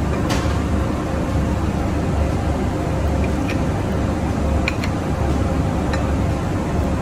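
Steady low mechanical rumble and hum, like a kitchen fan or machine running. Over it come a few light clicks of a metal utensil against a ceramic plate as a cooked rice dumpling is cut open, about a third of a second in, then near the middle, twice a little later, and once more near the end.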